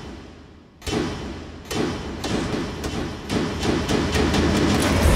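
A series of heavy thuds with echo in a film soundtrack, coming faster and louder toward the end.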